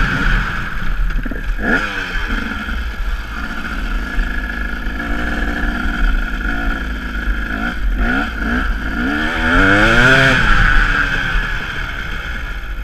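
KTM EXC enduro motorcycle engine running under the rider, rising and falling in pitch several times as the throttle is opened and closed over rough grass, over a steady rushing noise.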